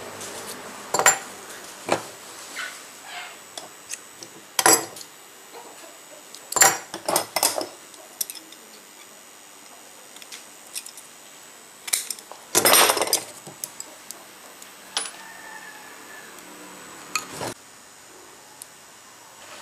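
Thin sheet-metal strips and wire pins of a hand-made batik stamp clinking and tapping as they are handled and fitted into place: a dozen or so sharp, irregular clicks, with a longer rattle about two-thirds of the way through.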